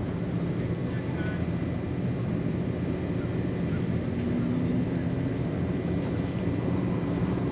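Aircraft engines droning low and steady overhead, with a faint tone that rises a little about halfway through.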